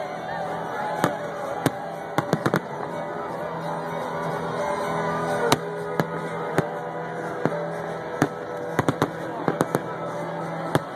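Aerial fireworks exploding overhead in sharp, irregular bangs, about fifteen of them, with a quick run of reports near the end. Beneath them run a crowd's voices and music.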